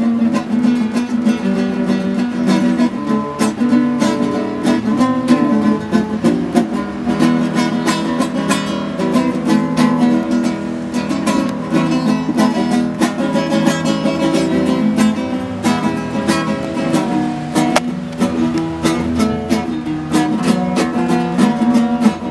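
Music played on a plucked string instrument, strummed and picked in many quick strokes.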